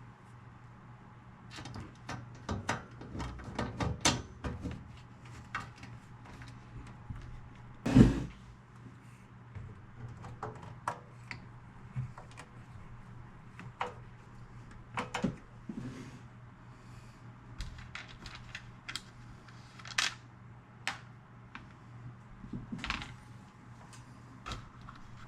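Scattered clicks, taps and knocks of parts being handled and fitted by hand as the stereo is reassembled, with one loud thump about eight seconds in. A steady low hum runs underneath.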